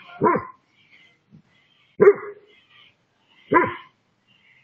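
A dog barking three single barks, about a second and a half apart.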